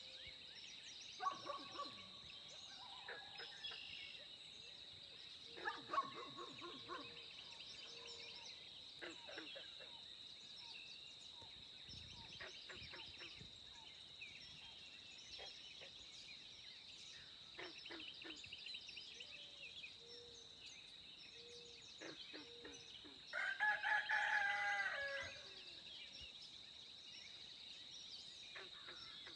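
Early-morning rural birdsong: scattered bird calls over a steady high-pitched tone, with one loud call from a large fowl lasting about a second and a half near the end.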